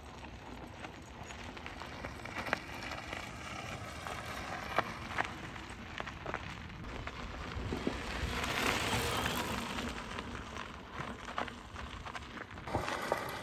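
Bafang 510 mid-drive e-bike motor pulling at full assist up a climb, its faint whine almost lost under the steady crunch and crackle of knobby tyres on a loose dirt fire road. The motor is very quiet.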